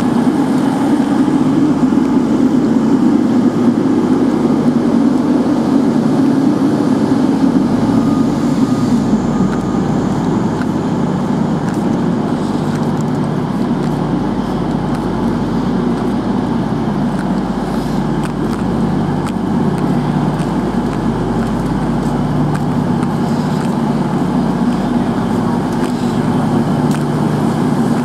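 Class 221 Super Voyager's underfloor diesel engines idling at the platform: a steady drone with a low, even hum.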